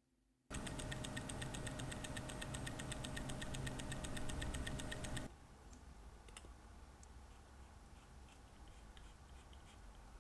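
Rolex caliber 3135 automatic watch movement ticking fast and evenly, about eight beats a second, a sign that its balance is swinging freely and the movement is running. The ticking starts about half a second in and cuts off after about five seconds, leaving only a few faint clicks of tweezers on the movement parts.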